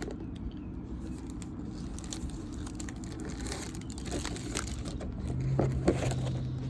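Plastic wrapping of a baseball card rack pack crinkling and rustling in the hands, with scattered small clicks. A low steady hum comes in near the end.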